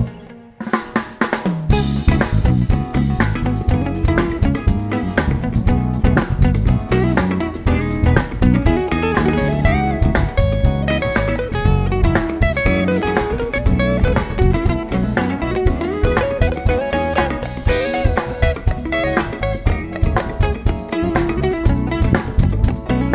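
Live band playing an instrumental passage on drum kit, bass and guitar. It drops out briefly at the start and comes back in about a second and a half later.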